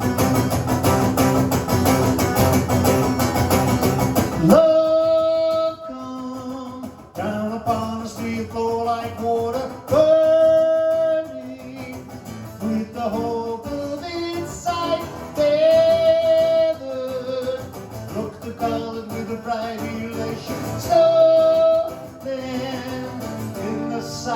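Live rock song on guitar: dense strumming, then about four and a half seconds in it thins out and long held melody notes come in, sung or played, over lighter guitar accompaniment.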